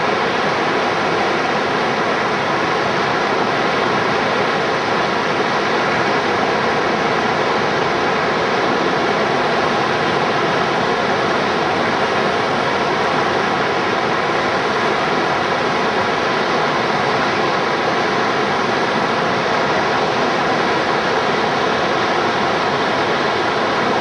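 Steady, loud rush of fast river water pouring over a standing wave and rapids, even and unbroken throughout.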